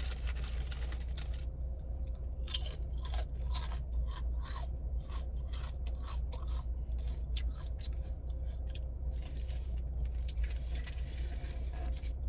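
Close-up chewing of a sub sandwich with crunchy banana peppers and pickles: a run of short, crisp crunches and mouth sounds, over a steady low hum.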